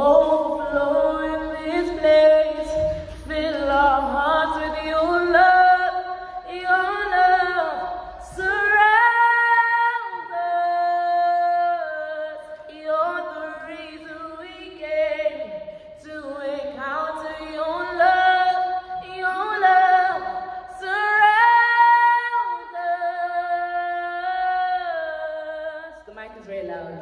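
A young woman singing a worship song solo and unaccompanied into a handheld microphone. She holds long notes and wavers through ornamented runs, phrase after phrase.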